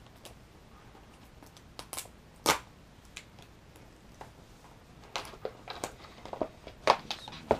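A keyboard's cardboard retail box being opened and its contents handled: scattered taps and rustles of card and packaging, a sharper knock about two and a half seconds in, then a busier run of clicks and scrapes in the last couple of seconds.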